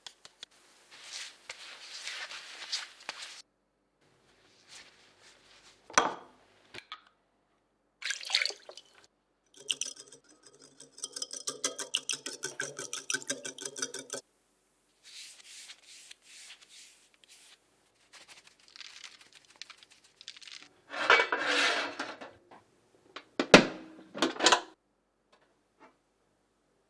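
Kitchen prep sounds in several short takes: a wire whisk beating egg in a small glass bowl, making rapid clinking strokes for about four seconds in the middle. Around it are brief knocks, scrapes and clatters of utensils and dishes.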